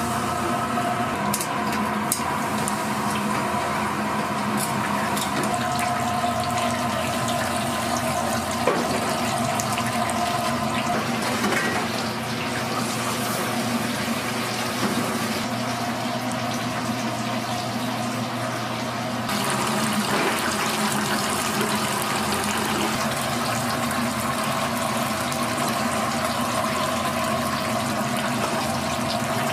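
Oil sizzling and bubbling steadily in a deep fryer, over a constant hum, with a few sharp utensil clicks, the loudest about nine seconds in.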